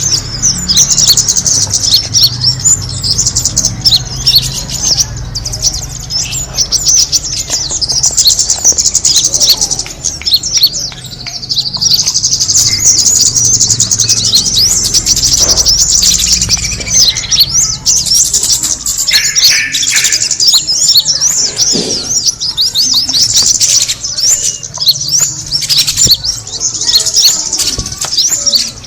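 Dense, fast, high-pitched chirping and twittering of small birds, played as a lure call for the bird called kemade. It goes almost without a break, with a short lull about ten seconds in.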